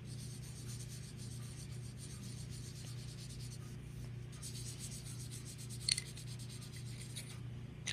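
Felt-tip marker scribbling on paper in quick back-and-forth strokes, colouring in a drawing. A short tap comes about six seconds in, over a steady low hum.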